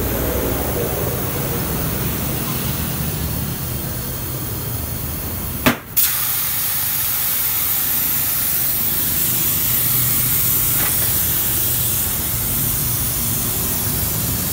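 Steady hissing over a low rumble. About six seconds in, a sharp click-like break interrupts it, and the hiss is brighter afterwards.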